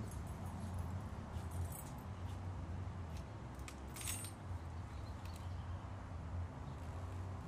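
A few short metallic jingles and clinks of keys being handled, the brightest about four seconds in, over a steady low background hum.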